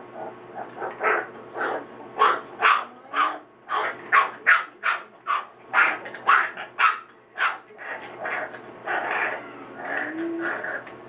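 Pit bull puppy barking in play, a quick run of short high yaps about two a second, followed by softer, longer yips and growls over the last few seconds.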